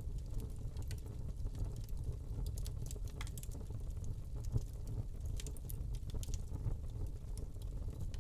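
Wood fire burning in a fireplace: a steady low rumble of flames with irregular small crackles and pops from the burning log.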